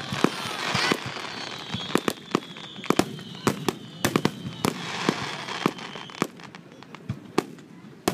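Aerial fireworks shells bursting overhead: a rapid, irregular string of sharp bangs and crackles, thinning out near the end.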